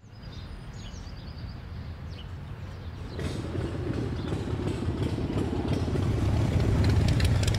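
A group of cruiser and chopper motorcycles rumbling as they ride closer, growing steadily louder from about three seconds in. Faint bird chirps are heard at the start.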